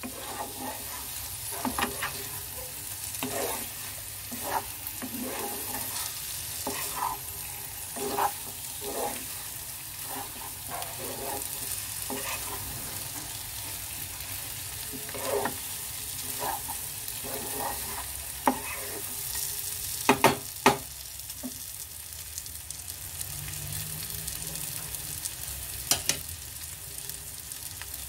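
Thick masala with paneer cubes and peas sizzling in a nonstick pan on a medium gas flame while a wooden spatula stirs and scrapes through it in short, uneven strokes. A few sharper knocks stand out about two-thirds of the way through and again near the end.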